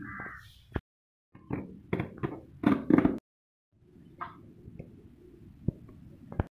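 Several sharp knocks and clicks over rustling handling noise, cut off twice by abrupt drops to silence.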